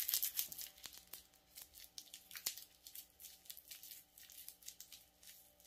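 Packing tape being peeled off a cardboard shipping box, giving a faint, uneven crackle of small sharp ticks that thins out as it goes.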